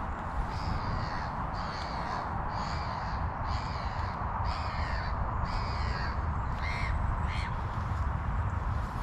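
A bird calling over and over, about eight short calls at roughly one a second, the last two shorter and closer together, over a steady low rumble of wind on the microphone.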